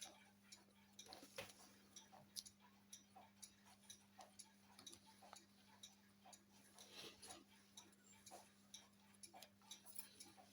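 Near silence: faint, fairly even ticking of a mechanical clock, about two ticks a second, over a low steady hum.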